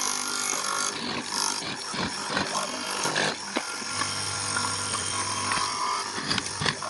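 Woodworking power tool running on wood, with irregular knocks and clatter throughout.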